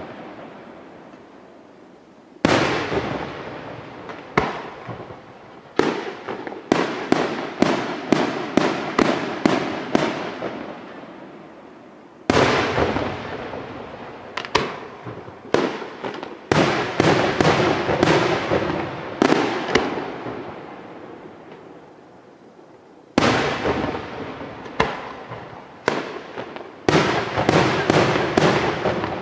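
Aerial firework shells bursting: sharp reports, each followed by a long fading echo. They come singly and in quick runs of several bursts, about two a second, with lulls of a few seconds between runs.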